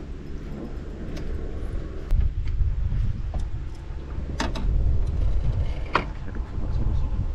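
Wind buffeting the camera's microphone as a heavy, uneven low rumble that grows stronger about two seconds in. A few light clicks and knocks come through it, the clearest two about four and a half and six seconds in.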